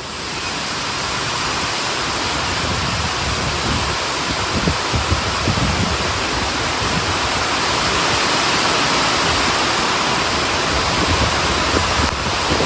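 Heavy rain pouring down: a loud, steady hiss that builds over the first second, with irregular low thuds.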